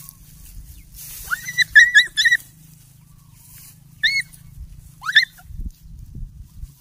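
Animal squealing in high, pitched cries: one rising squeal runs straight into a quick string of four short squeaks, followed by two more single squeals about a second apart.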